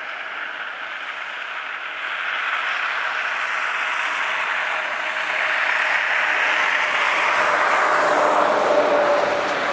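Shallow river water running over a pebble bed, a steady rushing that grows louder toward the end.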